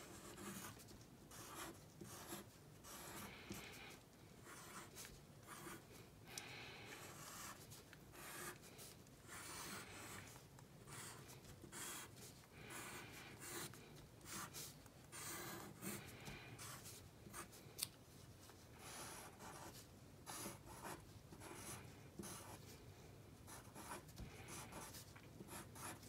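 Pencil drawing on paper: faint, irregular scratching strokes with short pauses as lines are sketched, and one sharper tick about two-thirds of the way through.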